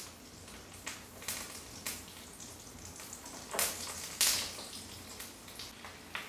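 Mutton meatballs deep-frying in hot oil in an iron kadai: a steady sizzle and bubbling dotted with sharp crackles and pops. There are two louder surges of sizzle a little past halfway as more balls go into the oil.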